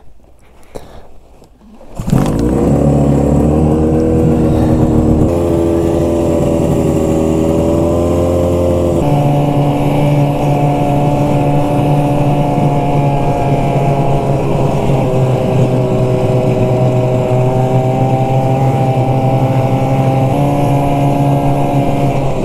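After a quieter first two seconds, a snowmobile's two-stroke engine running steadily under way on the trail, its pitch shifting slightly a couple of times.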